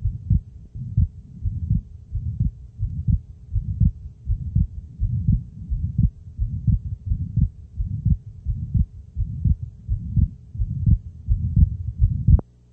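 Stethoscope recording of a heartbeat with an atrial septal defect (ASD): low thumping lub-dub beats repeating steadily at about 85 a minute, over a faint steady hum. It stops near the end.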